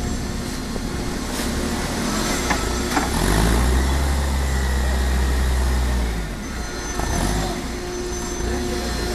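Baler machinery running with a steady hum and a few sharp clicks. About three seconds in, a deep drone comes up and holds for about three seconds, then drops away as the machine goes through a bale cycle.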